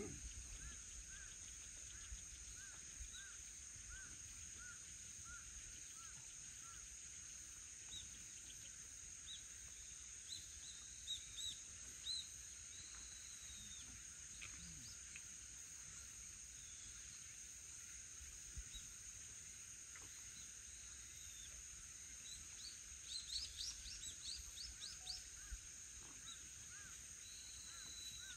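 Quiet outdoor ambience: birds chirping in short clusters about ten seconds in and again near the end, over a steady high-pitched insect drone.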